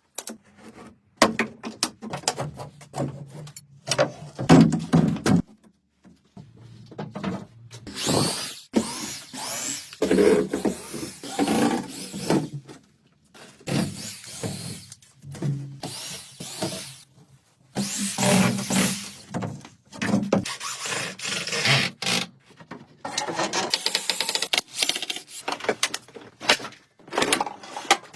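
Workshop tool sounds in short separate bursts: scraping, rubbing and knocks of hand and power tools, with abrupt breaks between them.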